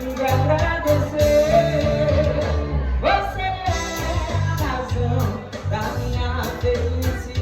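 A band playing a Latin-flavoured pop song, with a sung melody over a steady bass beat.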